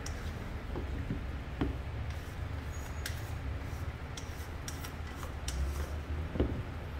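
Spatula scraping thick soufflé pancake batter out of a stainless steel mixing bowl into a plastic jug: soft scrapes and squelches with a few light clicks against the metal, over a steady low hum.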